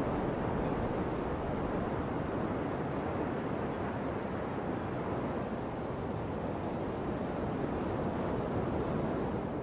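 Steady wash of ocean surf on a beach, mixed with wind.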